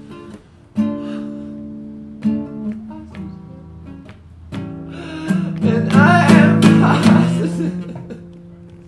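Classical guitar played by hand, notes plucked and left to ring, with a man singing along. The voice rises to its loudest about six seconds in, then the music fades away near the end.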